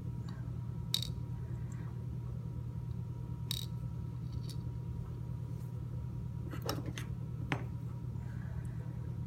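A few sharp, small metal clicks and clinks, spread out, as the pins and springs are tipped out of an American 1106 padlock's lock core, over a steady low hum.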